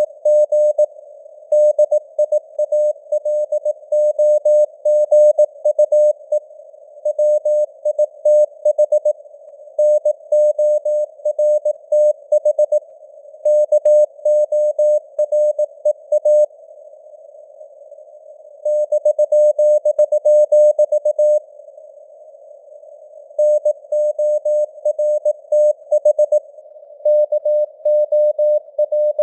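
Morse code (CW) sent at 18 words per minute: a single tone near 600 Hz keyed in dots and dashes over a narrow band of simulated radio hiss, like a receiver's CW filter. A couple of longer pauses between words fall past the middle.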